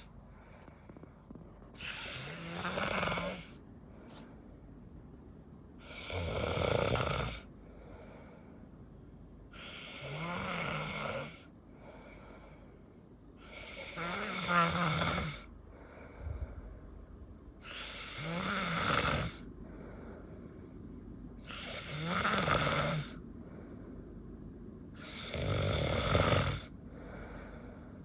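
Snoring in a slow, regular rhythm: about one snore every four seconds, seven in all, each a drawn-out rasp lasting a second or so, some with a deeper rumble.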